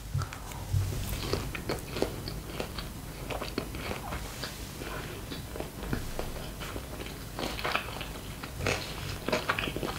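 A person biting into a sushi roll and chewing it close to the microphone, with many small crunchy clicks from the mouth throughout.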